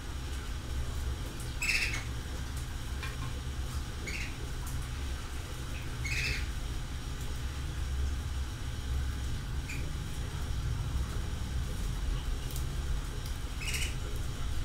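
A small animal giving short, high squeaks every few seconds, about five in all, over a steady low rumble.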